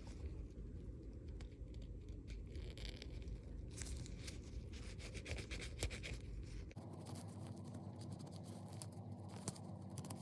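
Faint, irregular scratching and rubbing as softened sealant and glue residue is scraped off a metal brooch, likely with a soft wooden toothpick after an acetone soak.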